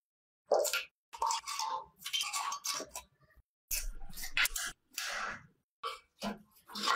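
Short bursts of metal scraping and clinking as hand tools work on rusty vintage Honda motorcycle parts during dismantling. The bursts are separate snippets with dead silence cut between them.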